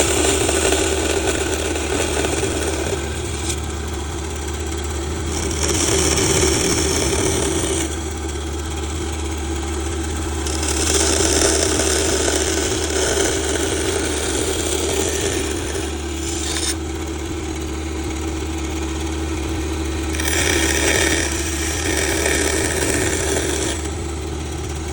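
An electric power tool running steadily, with several spells of louder, hissing cutting noise of a few seconds each as it works into wood.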